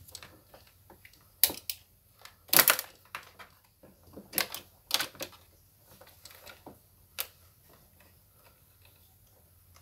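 Scattered sharp clicks and small knocks of metal and plastic from hands fitting a throttle cable onto the carburetor of a small sprayer engine, with a quick cluster of clicks about two and a half seconds in.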